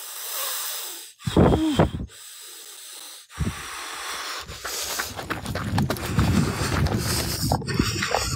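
Breathy hissing exhales close to a phone's microphone, with one louder breath about a second in. From halfway through comes rustling and handling noise with light thuds, as of someone walking on a leaf-strewn dirt path with the phone.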